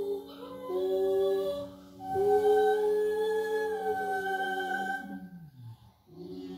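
A boy humming a slow tune in long held notes over a steady low tone. About five seconds in the pitch slides down and breaks off briefly before the humming starts again.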